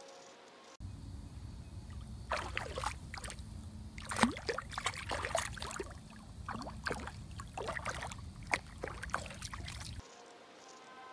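Water splashing and sloshing in irregular bursts close to a kayak, over a steady low rumble. The sound cuts in abruptly about a second in and stops abruptly about a second before the end.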